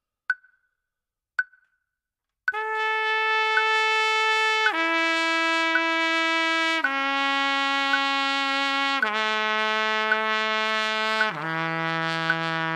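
Trumpet playing warm-up long tones: after about two and a half seconds of steady ticks about once a second, it holds a string of sustained notes of about two seconds each, every one lower than the last. The ticks keep time under the notes.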